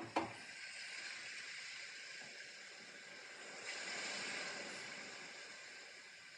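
Two quick sharp taps at the start, then the soft hiss of a round watercolor brush stroking across paper, swelling with one longer stroke about four seconds in.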